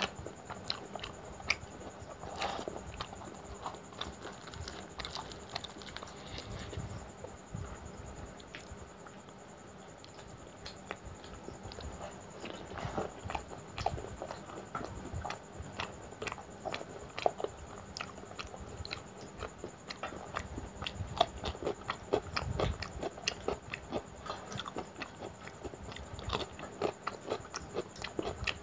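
Close-miked chewing and wet mouth smacks of someone eating luchi with spicy mutton curry: a steady run of small clicks, sparser for a few seconds near the middle.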